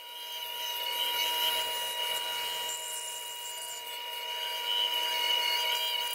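Bandsaw running with a steady whine, its blade cutting curves through a thick plywood board. The cutting noise builds during the first second and then holds steady.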